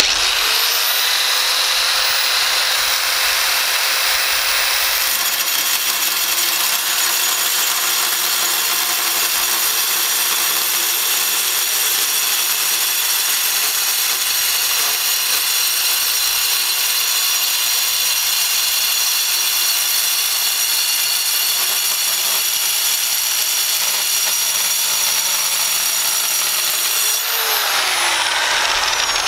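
Einhell 700 W corded circular saw fitted with a Graff Black diamond cutting wheel, spinning up and cutting a long straight line through steel plate with a steady, high-pitched grinding whine. Near the end the motor winds down with a falling pitch.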